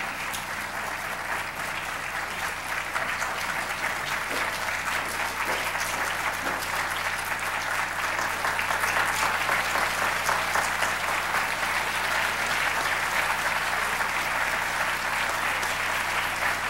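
Audience applauding, the clapping swelling louder about halfway through.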